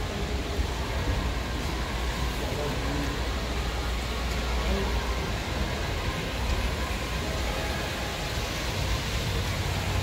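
Indoor shopping mall ambience: a steady low rumble and hiss with faint, distant voices of shoppers.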